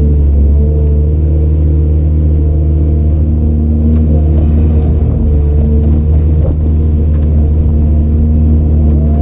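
Heavy diesel engine of earthmoving equipment running steadily under load, a deep, even drone.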